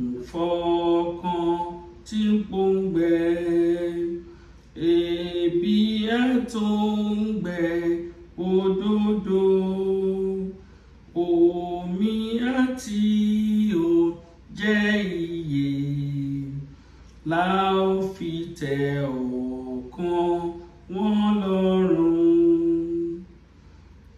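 A woman singing a Yoruba hymn solo and unaccompanied, in slow, held notes with short breaks between phrases.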